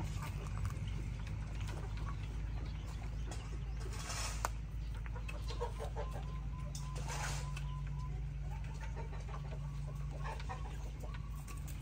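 Chickens clucking in the background over a steady low hum, with two brief rustling or handling sounds about 4 and 7 seconds in.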